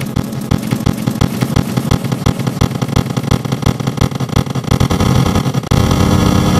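Harsh, distorted din of many stacked copies of the same clip's audio layered over one another, a buzzing, crackling mass with rapid irregular pulses. About three quarters of the way through it thickens into a steadier, louder drone.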